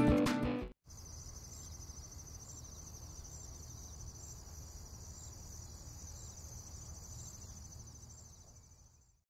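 Acoustic guitar music stops abruptly within the first second. After it come insects chirping steadily, a high, even chirring with a regular faint pulse, over a low outdoor rumble; both fade out near the end.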